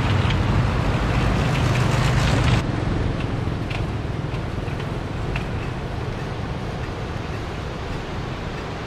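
Small motorbike engine running, with wind buffeting the microphone; the engine sound drops away abruptly about two and a half seconds in, leaving a steady rushing noise.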